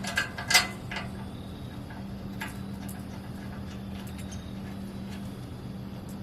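A few sharp clicks and knocks in the first second, and one fainter click about two seconds later, from metal and plastic grill parts being handled and fitted during assembly. A steady low hum runs underneath.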